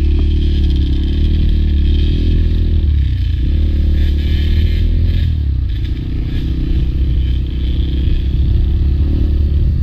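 Honda CRM250 single-cylinder two-stroke enduro dirt bike engine running hard, its note easing off briefly twice before picking up again.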